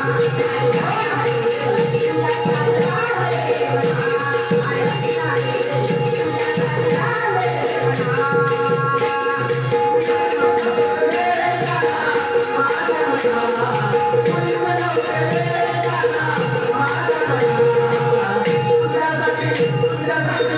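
Marathi bhajan music: a gavlan sung over a steady held drone, with a drum beating a regular rhythm and small hand cymbals jingling throughout.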